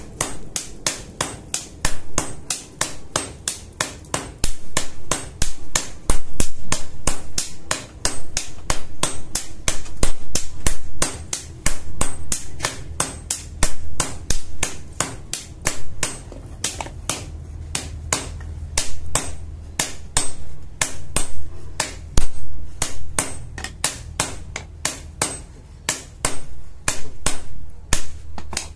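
Blacksmith's hand hammer striking a steel blade, forging it: a rapid, steady run of blows about three to four a second, each with a bright metallic ring. A low steady hum runs underneath.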